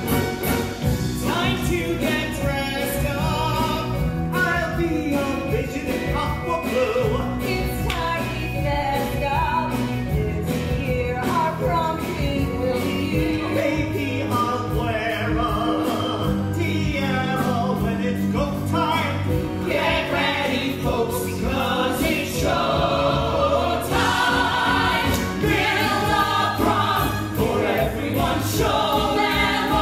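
Musical theatre song: a cast singing together over a band accompaniment.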